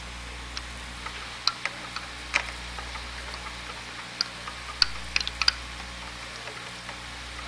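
Scattered small, sharp clicks and taps of hand work on an oscilloscope's front-panel attenuator as knobs are fitted and turned, over a steady low hum and hiss.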